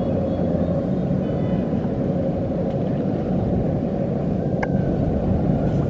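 Kubota DC-93 combine harvester's four-cylinder turbocharged diesel running steadily under load, a low drone with a steady hum, and a single sharp click about four and a half seconds in.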